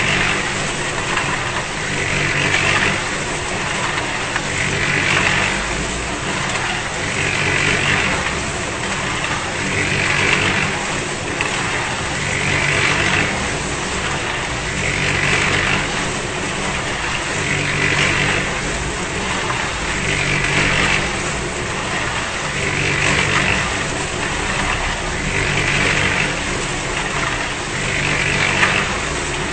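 Concrete mixer running steadily, its sound swelling in a regular cycle about every two and a half seconds.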